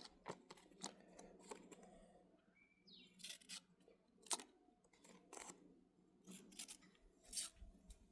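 Faint, scattered clicks and short scrapes, a dozen or so, of a pocket knife being handled.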